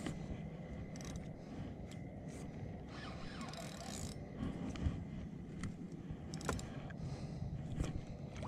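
Spinning reel being cranked and clicking as a hooked striped bass is reeled in against its pull.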